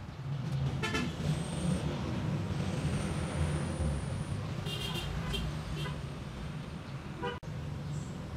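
Low steady rumble of a vehicle, swelling slightly and then easing off, with a thin high whistle over it. A few light clicks and taps come from the plastic fuel pump sender unit as it is pressed down into its tank opening.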